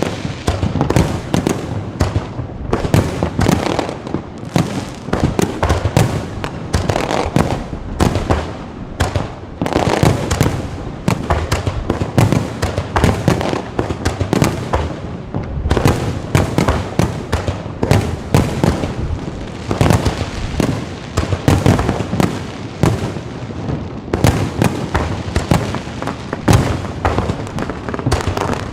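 Fireworks display going off continuously: a dense, irregular run of bangs and crackles from low-altitude firework batteries, several blasts a second with no pause.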